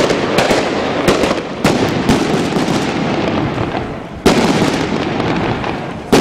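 Daytime festival fireworks going off in a rapid barrage: continuous crackling with repeated sharp bangs, the loudest about four seconds in.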